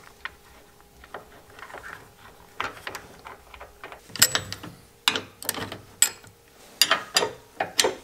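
Irregular light metallic clicks and scrapes as a hex nut is threaded onto a steel mounting bolt by hand and tools are handled against the trailer bracket, growing denser and louder about halfway through.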